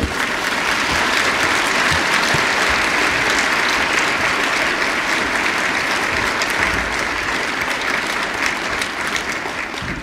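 Audience applauding, steady dense clapping that eases off slightly near the end.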